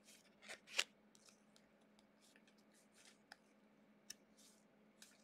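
Faint rustles and soft clicks of trading cards being handled and sorted, with a few sharper ticks scattered through.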